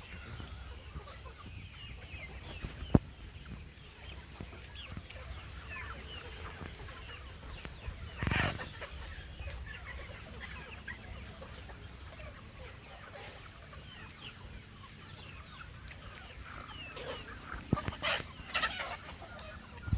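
A flock of free-range country chickens (Aseel-cross and Siruvidai) clucking and calling throughout, with a sharp knock about 3 s in, a brief loud rustle about 8 s in, and a few more knocks and rustles near the end.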